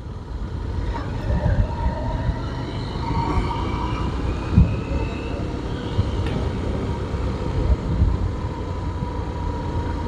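Honda CBF150 motorcycle riding, its single-cylinder engine running under a steady rumble of engine and wind noise, with the engine note rising a little in the first few seconds.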